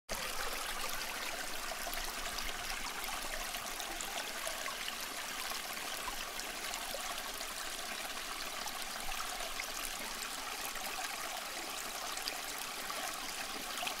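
Small tabletop cement waterfall fountain running: thin streams of water trickle and splash steadily from its little pipes into the pots and basin below.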